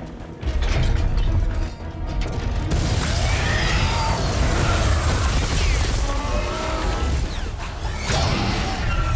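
Film sound effects of a giant fighting robot, Gipsy Danger: mechanical grinding and ratcheting of its joints over a deep rumble, turning to crashing impacts and debris from about three seconds in, with a sharp hit near the end. Orchestral score plays underneath.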